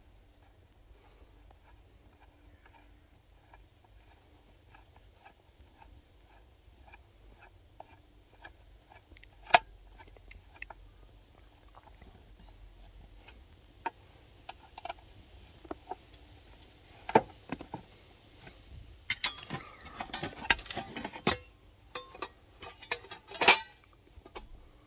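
Scattered clicks and light knocks of tools and small parts being handled during work on a car's ECU, over a faint steady hum. Faint, evenly spaced ticking runs through the first half, and a busier flurry of clatter comes past the three-quarter mark, with a sharp click near the end.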